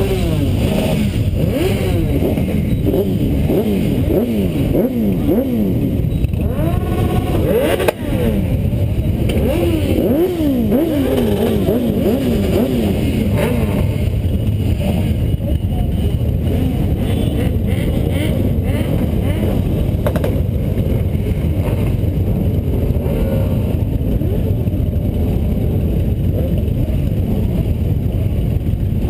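A crowd of motorcycle engines idling together with a steady low rumble, while riders blip their throttles so that many overlapping revs rise and fall, most often in the first dozen seconds.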